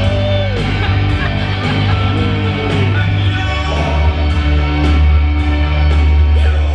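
Loud pop music with a heavy bass line and steady beat, played over a PA system.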